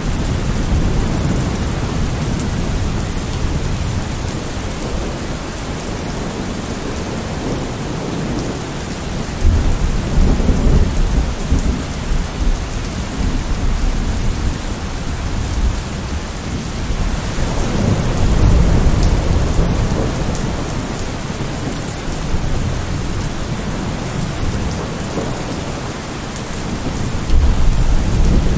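Thunderstorm: steady heavy rain with rolling thunder, low rumbles swelling about a third of the way in, again past the middle, and near the end.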